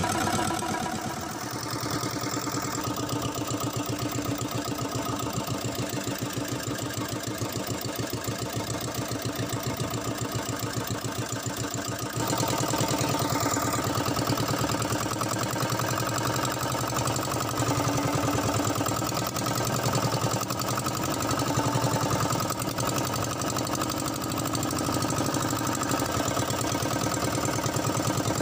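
Outrigger fishing boat's inboard engine running steadily with a fast, even firing rhythm, getting a little louder about twelve seconds in.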